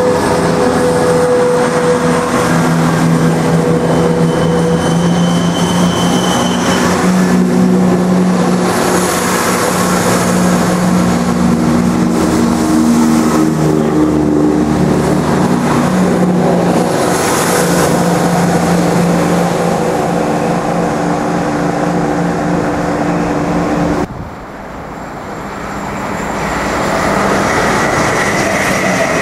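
ScotRail Class 170 Turbostar diesel multiple unit pulling away from the platform, its underfloor diesel engines running under power with the note climbing as it speeds up. About 24 s in the sound cuts abruptly to a second diesel train, heard building as it draws in.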